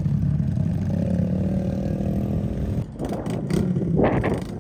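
A vehicle engine running steadily, its tone dipping slightly in pitch about a second in. About three seconds in it gives way abruptly to rough, uneven noise with a few sharp knocks.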